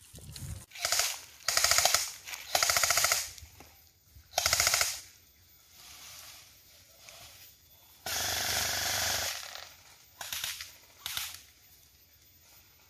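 Airsoft guns firing full-auto in short rapid bursts: three loud bursts in the first five seconds, a second-long hiss about eight seconds in, and two brief bursts near the end.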